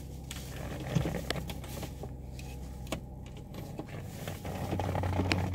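2009 Dodge Grand Caravan's V6 engine idling, a steady low hum heard from inside the cabin, growing a little louder near the end, with a few faint clicks over it.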